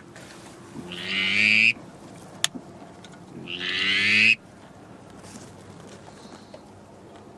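Two long, drawn-out notes on a duck call, a couple of seconds apart, each swelling louder for about a second and then cutting off sharply. A short sharp click falls between them.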